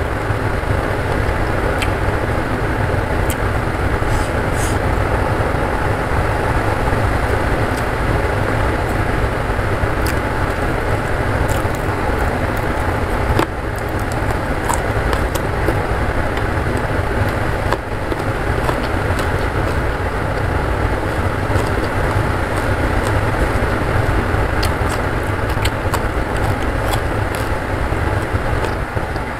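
Heavy rain pouring steadily, a dense rumbling hiss, with scattered small clicks and smacks of hand-eating and chewing on top.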